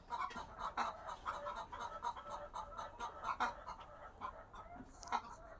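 A flock of chickens clucking, many short calls overlapping.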